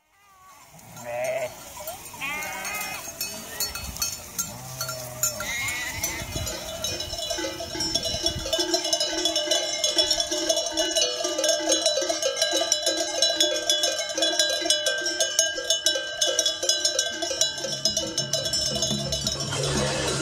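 Sheep bleating, then a flock's sonazzos, Sardinian livestock bells, clanking in a steady rhythm as the animals move, growing louder a few seconds in.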